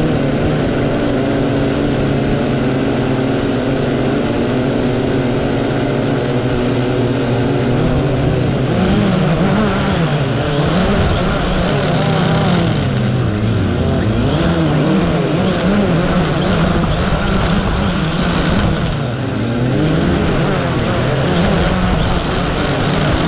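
A drone's electric motors and propellers whining, close up, as heard from a camera mounted on the drone. The pitch holds steady at first, then from about eight seconds in wavers up and down as the motors change speed while it manoeuvres.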